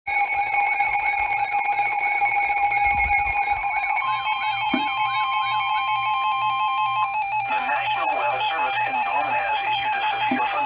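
Emergency alert tones: a steady electronic alarm tone with a warbling tone over it, starting abruptly. An extra steady tone joins for a few seconds in the middle, and busier sound comes in near the end. These tones precede a severe thunderstorm warning.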